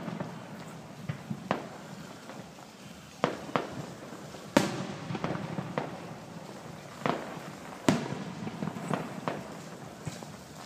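Fireworks display: aerial shells bursting in about a dozen sharp bangs at irregular intervals, each trailed by a rumbling echo. The loudest burst comes about halfway through.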